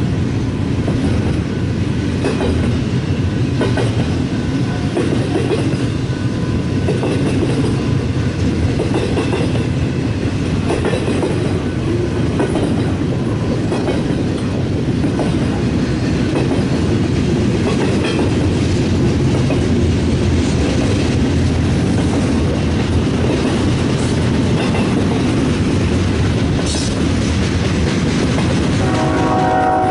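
BNSF freight train rolling past at trackside: a steady heavy rumble of wheels on rail with scattered clacks. A locomotive horn starts sounding just before the end.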